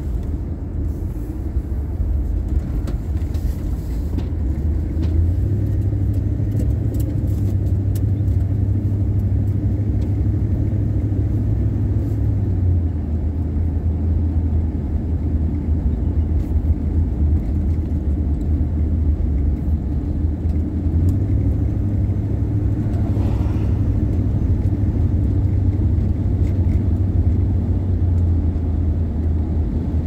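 Car engine and road noise heard from inside the moving car: a steady low drone whose pitch steps up and down a few times as the engine speed changes.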